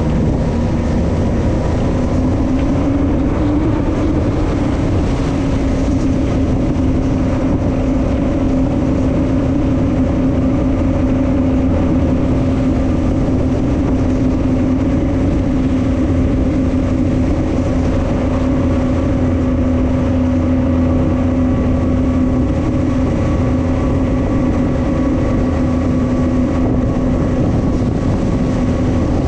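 Speedboat engine running steadily under way, with the rush of water and wind. The engine's pitch climbs a little a few seconds in, then holds steady.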